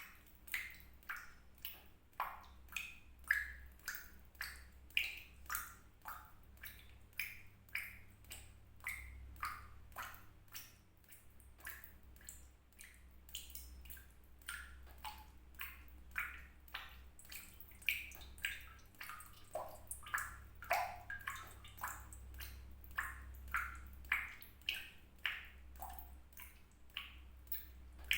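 Water drops falling into water, an uneven run of plinks at about two a second, each with a short pitched ring that changes from drop to drop, over a low steady hum.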